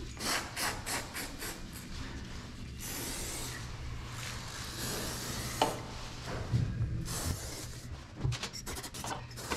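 Aerosol can of Juice Lubes Frame Juice bike polish being sprayed onto a road bike frame in several short hissing bursts, with scattered clicks between them.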